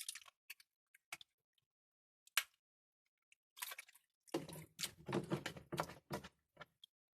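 Hands working on washing machine parts: a few sharp plastic clicks, then from about halfway an irregular stretch of scraping and rustling.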